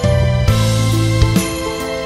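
Background music: steady bass notes under held melody notes, with a regular beat.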